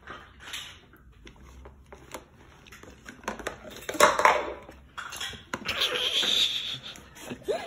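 A baby squealing and fussing: a loud squeal about four seconds in and a longer, drawn-out one near the end. A few light knocks of a plastic bowl and hands on a plastic high-chair tray come between them.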